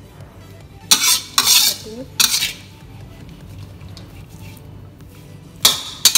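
Metal spatula scraping and turning stir-fried noodles around a metal wok, in several short bursts: three in quick succession about a second in, then one more near the end.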